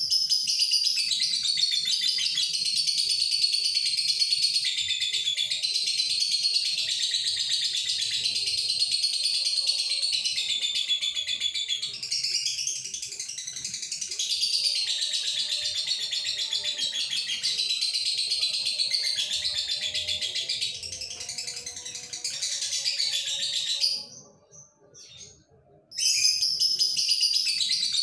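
Lovebird, a male in breeding condition, singing a long, continuous high-pitched chattering song. It breaks off for about two seconds near the end, then starts again.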